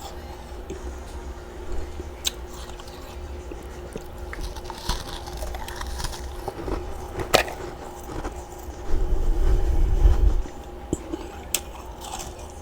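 Close-up biting and chewing of large chunks of freezer frost, with a few sharp cracks as chunks break. A low rumble lasts about a second and a half near the end, over a faint steady hum.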